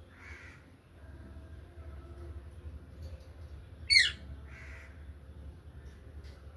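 A parrot calling: a soft call near the start, one loud, sharp screech about four seconds in, then another soft call just after it.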